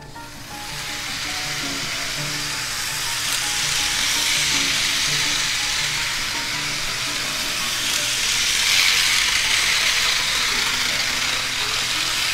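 Life-Like HO scale Santa Fe Flyer train running around its plastic track: a steady hissing rush from the locomotive and the rolling cars. It grows louder about four seconds in and again near eight seconds, over background music.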